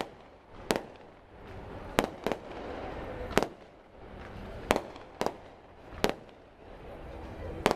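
Aerial fireworks shells bursting in the sky: about eight sharp bangs at uneven intervals, some in quick pairs.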